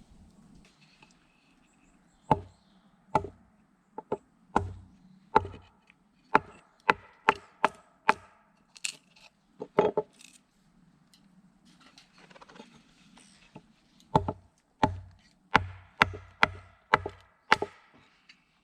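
A blade chopping into wood with sharp, separate strikes: about a dozen in the first half, a short pause, then about eight more in quicker succession near the end.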